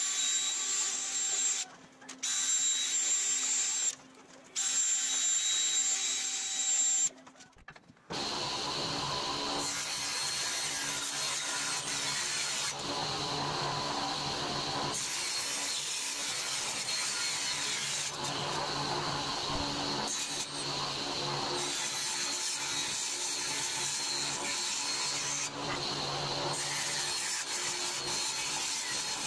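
A DeWalt cordless drill drilling rivet holes through aluminium sheet, its motor whining in three short runs with brief stops between them. From about eight seconds in, a table saw runs steadily with an even, humming machine noise.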